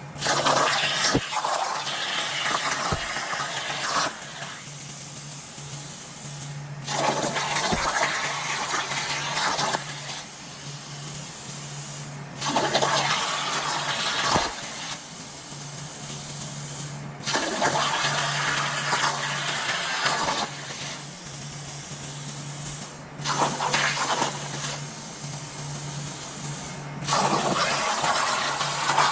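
Rushing, hissing noise with a steady low hum at a CNC plasma cutting table's water bed. It comes as short clips that cut off abruptly every four to six seconds.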